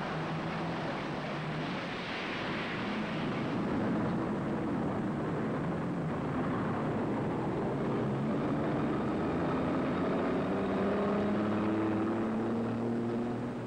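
City street traffic: motor vehicles driving past. A heavy vehicle's engine grows louder and rises slightly in pitch in the later seconds as it passes close.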